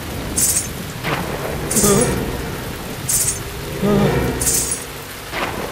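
Ghungroo ankle bells jingling in short bursts, four times, about every second and a half, like someone stepping while wearing them. Steady rain hisses underneath.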